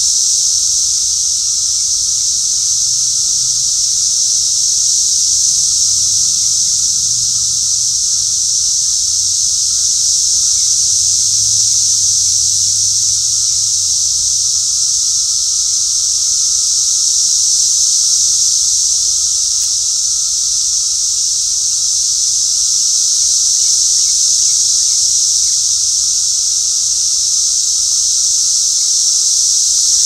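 Chorus of Brood V 17-year periodical cicadas: a loud, steady, high-pitched drone without a break, with a fainter lower steady tone underneath.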